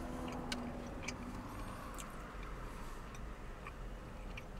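A person chewing a mouthful of crispy chicken burger, giving a few soft, faint mouth clicks over a low steady background.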